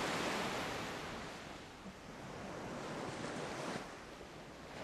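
Surf washing in: an even hiss of ocean waves that swells and fades in slow surges, one receding near the start and another building and ebbing late on.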